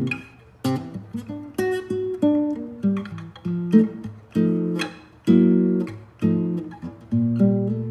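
Background music: a guitar picking single notes and chords, each note struck sharply and ringing out before the next.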